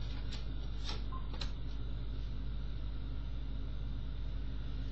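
A few light clicks and taps of tarot cards being drawn and laid on a cloth in the first second and a half, over a steady low background hum.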